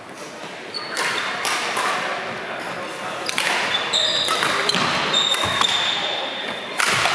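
Badminton play in a large echoing hall: a series of sharp taps of rackets on shuttlecocks, and high squeaks of shoes on the wooden court floor for a couple of seconds midway, over background chatter.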